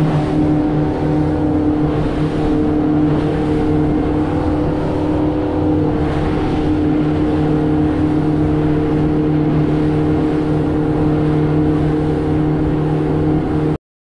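A fishing speedboat's engine running steadily at a constant pitch while the boat is under way, over a steady rushing hiss. It cuts off abruptly near the end.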